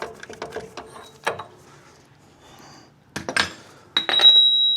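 Scattered metal clicks from working a ball joint press, then a clatter a little over three seconds in and a clear, high metallic ring from about four seconds in as the old ball joint comes free of the control arm.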